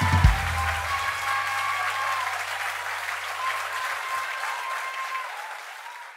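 Audience applauding as a live rock band's last note ends: a heavy low hit just after the start and a held bass note that dies away about four seconds in. The applause fades out near the end.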